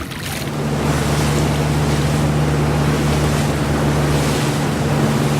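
Boat engine running at a steady pitch, its hum coming in about half a second in, with wind noise and water rushing past.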